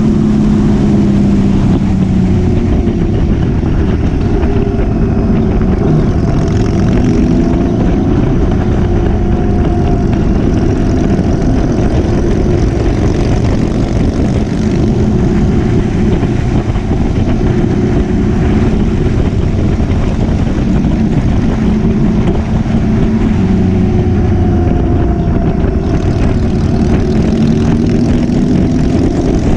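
Motorcycle engine running under way, its pitch easing gently up and down with the throttle, over a steady rush of wind and road noise.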